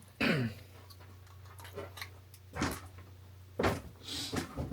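A short squeak that falls in pitch, then three separate knocks about a second apart: the clamped walnut glue-up being knocked into place.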